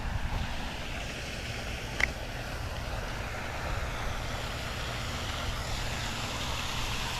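Steady outdoor rumble and hiss with no clear single source, with one sharp tick about two seconds in.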